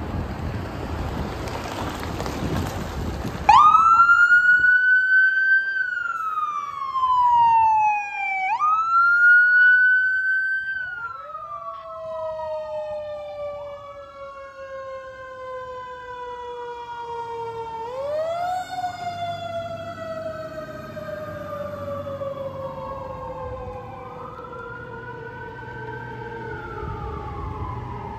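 A car passes, then about three and a half seconds in the electronic siren of an ambulance and rescue squad truck starts, wailing in slow rises and falls of pitch. Partway through, a second siren joins lower and overlaps the first. Both grow fainter toward the end.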